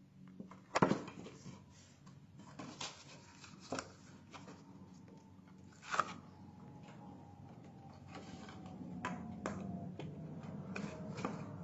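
Cardstock being folded and creased into a small box by hand: scattered paper rustles and light clicks and taps, the sharpest about a second in and again at about six seconds.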